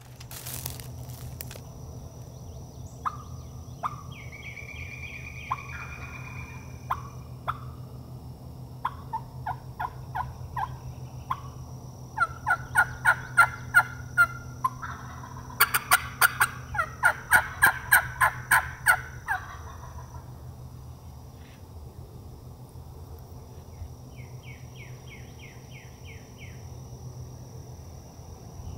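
Wild turkey calling: two runs of loud rhythmic yelps, about four notes a second, through the middle, with an Osceola gobbler gobbling over the second run.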